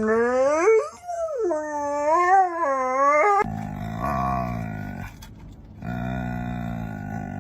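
A dog howling back in a long wavering 'woo-woo' that rises and falls in pitch. About three and a half seconds in, it gives way abruptly to two long, low, rough animal vocal sounds with a short break between them.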